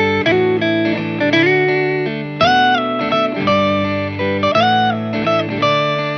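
Background music: a guitar playing a melody, with several notes sliding up in pitch.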